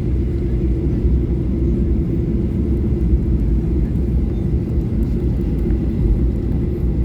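Steady low rumble and hum in the cabin of a Boeing 737-800 on the ground before takeoff, its CFM56-7B engines at idle.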